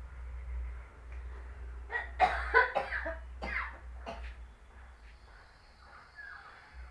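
A person coughing several times in quick succession, starting about two seconds in, over a low steady hum.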